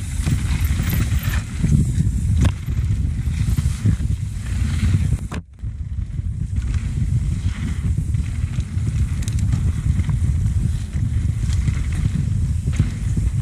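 Mountain bike ridden fast down dirt singletrack, heard from the rider's own camera: a constant rush and rumble of wind and tyres on dirt, with scattered rattles and knocks from the bike over bumps. The sound cuts out for a moment about five and a half seconds in.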